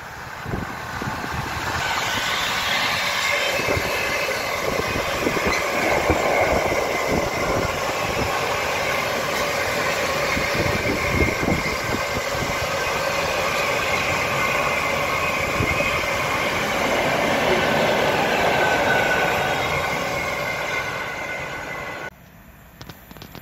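Freight train of flat wagons passing on the main line, the wagon wheels running over the rails with a steady rumble and clatter and a few thin high tones above. The sound builds over the first couple of seconds and cuts off suddenly near the end.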